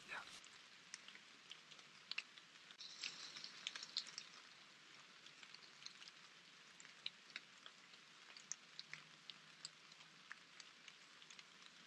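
Near silence with scattered faint, irregular ticks of light raindrops.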